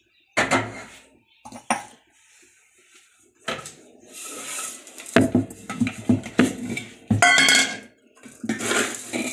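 Stainless steel kitchen utensils clanking and clattering as they are handled and set down: a sharp clank about half a second in, a few scattered knocks, then a busy run of clatter in the second half.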